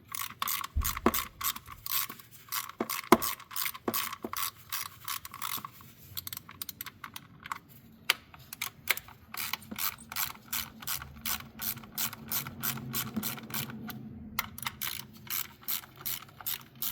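Hand ratchet clicking rapidly in runs as bolts are loosened, with a brief pause near the end.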